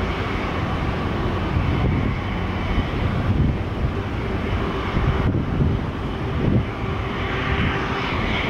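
Boeing 777-200ER's twin jet engines at takeoff power, loud and steady, with a faint whine above the broad engine noise.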